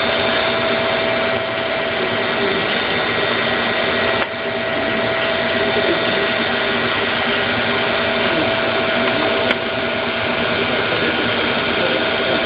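Daikin EWLDJ235-SS chiller compressor running with a steady mechanical rattle and whine, the strange sound that the owner takes to be abnormal. The sound dips briefly about four seconds in.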